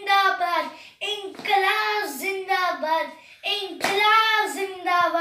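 A child singing a song in held, wavering notes, in three phrases with short breaths between them.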